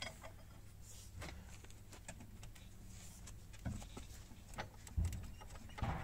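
Scattered light metallic clicks and a few dull low thumps from a socket wrench with a long steel pipe extension being levered on a car's wheel bolt. The loudest thump comes about five seconds in.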